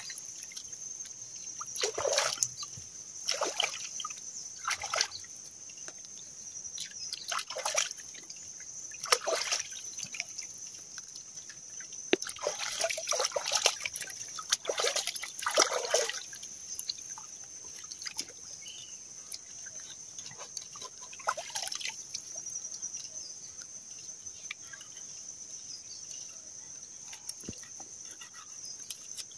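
Hands sloshing and splashing river water while a caught fish is rinsed and cleaned in the shallows: irregular splashes every second or two, busiest in the first half and sparser later, over a steady high-pitched tone.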